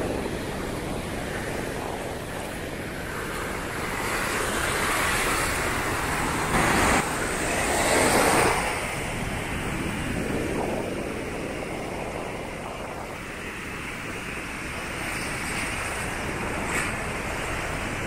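Ocean surf breaking and washing onto the beach, swelling and easing, loudest for a few seconds in the middle, with wind buffeting the microphone.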